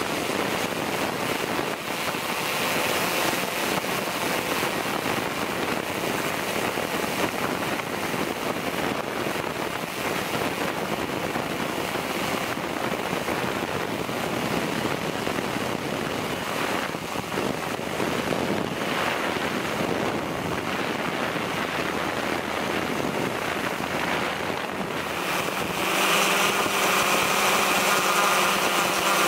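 Steady rushing wind noise on the microphone, an even hiss with no clear pitch. Near the end it grows louder and a faint steady hum with a few held tones joins in.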